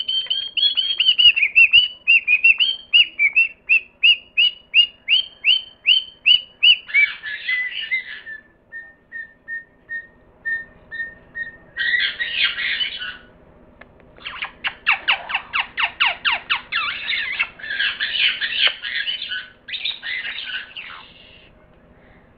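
Rainbow lorikeet calling. It gives a fast run of repeated high chattering notes, about three a second, for the first seven seconds, then a string of short even piping notes. After that come several bouts of harsh rasping screeches that stop about a second before the end.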